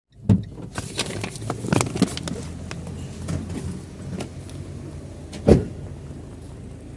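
Getting out of a car: a paper bag crinkling and several clicks and knocks of the door and seat, then the car door shut with one heavy thump about five and a half seconds in, over a steady low hum.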